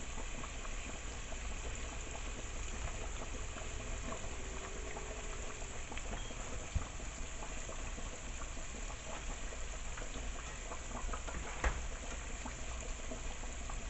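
Chicken wings bubbling and sizzling in buffalo wing sauce in a pan on the stove, a steady crackle with scattered small pops and a couple of sharper clicks.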